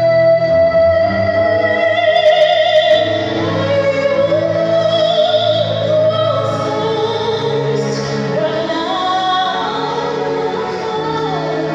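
A woman singing a hymn solo into a microphone, holding long notes with vibrato over a steady, sustained low accompaniment.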